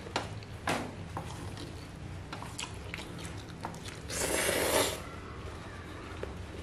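A person slurping up instant fried noodles: one loud, sucking rush lasting under a second, about four seconds in. Scattered short clicks and chewing sounds come before it.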